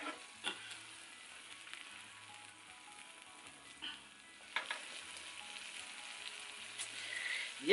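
Corned beef and spaghetti in tomato sauce simmering in a frying pan on a portable gas stove, a faint steady sizzle, with a few light knocks as the pan is moved on the burner grate.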